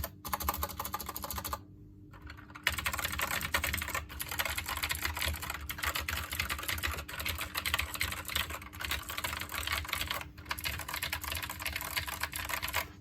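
Fast typing on a SteelSeries Apex M650 keyboard, a rapid run of key clicks. The clicking stops for about a second early on, then runs again without letup until it stops near the end.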